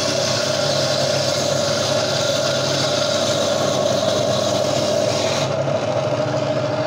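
Gryphon diamond bandsaw running with a steady whine, its diamond blade grinding through the stony skeleton of a Lobophyllia coral. The gritty hiss of the cut stops about five and a half seconds in as the blade comes through, leaving the motor running.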